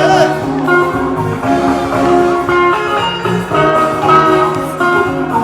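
Background music led by a plucked guitar melody.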